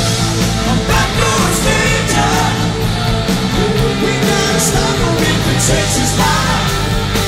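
Southern rock band playing live at full volume, electric guitars over bass and drums, in a direct soundboard recording.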